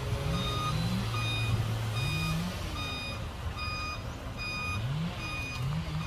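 A dump truck's reversing alarm beeps steadily, about once a second, over the low hum of its diesel engine running.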